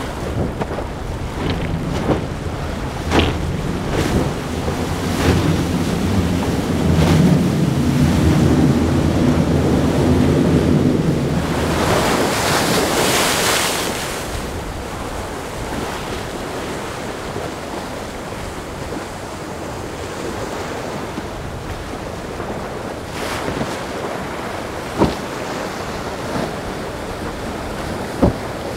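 Quad Yamaha 300 outboard engines droning as a center-console boat runs through rough waves, with a loud rush of spray and surf about twelve seconds in. After that mostly the wash of waves and wind on the microphone, with a couple of sharp knocks near the end.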